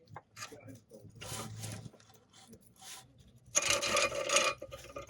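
Irregular scraping and rubbing of hand tools and parts being handled, with the longest, loudest scrape lasting about a second from about three and a half seconds in.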